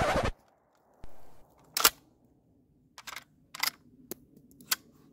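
A whoosh that cuts off just after the start, then a string of small, sharp metallic clicks, about six over four seconds, from handling a VRF14 semi-automatic 12-gauge shotgun as it is readied to fire.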